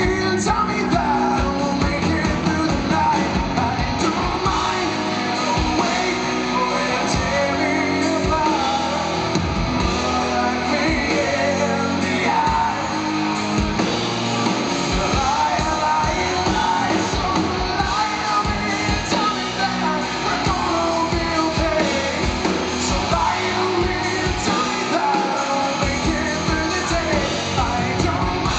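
Live rock band playing loudly, electric guitars over drums, heard in a large hall.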